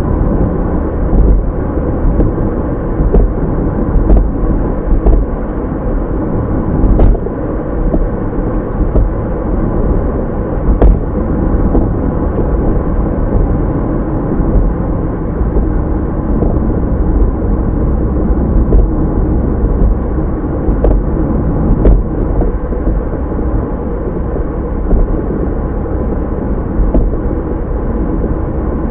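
Steady road and engine noise of a car driving, as picked up by a dashcam inside the cabin: a continuous low rumble with occasional short sharp ticks.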